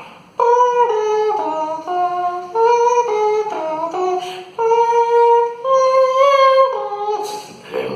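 A voice mimicking a theme tune: a wordless, high-pitched melody of about a dozen held notes, stepping up and down, with a short break in the middle.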